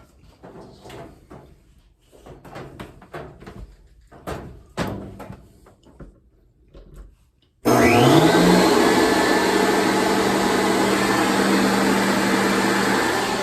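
Knocks and clatter of equipment being handled. Then, near the end, an electric leaf blower starts suddenly as it is plugged in. Its motor whine rises for about a second and settles into a loud, steady rush of air being forced through the dryer vent duct.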